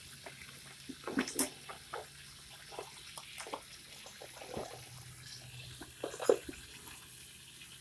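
Scattered light clicks and knocks of the plastic pressure washer being handled, over a faint steady hiss and low hum.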